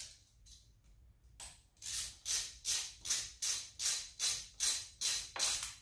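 A hand socket ratchet clicking in quick back-and-forth strokes, about ten short rattling bursts at roughly two and a half a second, as it backs out an 8 mm engine-cover bolt. The strokes begin after a second or so of quiet.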